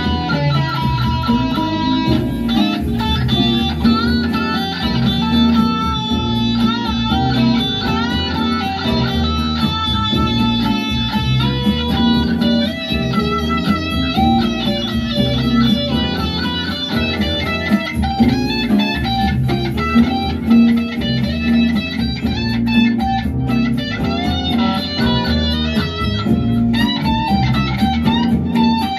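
Electric guitar, a sunburst Les Paul-style single-cutaway with humbuckers, played lead through an amplifier: a running melodic line with bent notes and vibrato.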